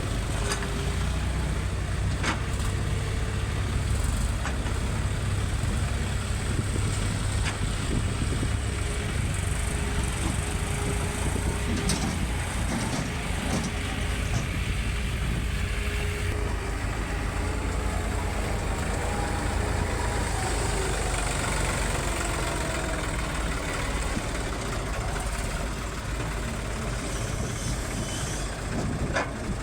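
Heavy earth-moving machinery's diesel engine running steadily, with a few sharp knocks now and then.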